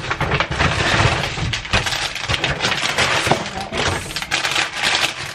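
Paper grocery bag rustling and a plastic bag of salad greens crinkling as they are handled and lifted out, close to the microphone; a dense run of crackles and rustles.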